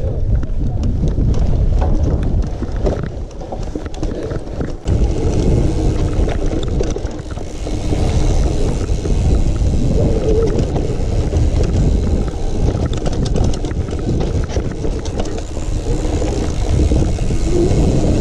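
Wind buffeting the microphone of a camera carried on a moving mountain bike, a loud steady rumble with small knocks and rattles throughout and a short lull about four seconds in.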